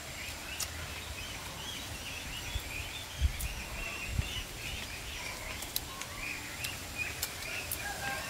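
Small birds chirping steadily, with a few short clicks about three, four and six seconds in.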